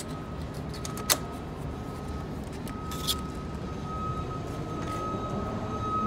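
Thin metal blade tool working at a steel door's latch, with one sharp metallic click about a second in and a softer scrape around three seconds, over a steady low rumble.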